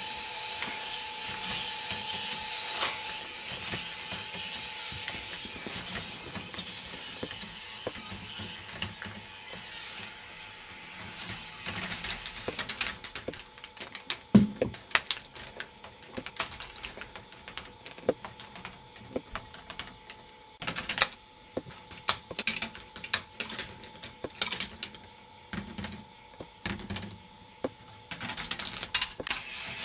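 K'nex ball machine running: its single motor and lifts give a steady whirring and ratcheting. From partway through, frequent irregular sharp clacks of balls dropping and rolling along the plastic tracks.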